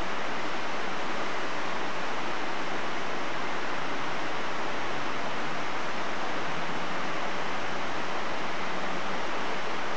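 Steady, even hiss at a constant level, with no distinct knocks, clicks or other events.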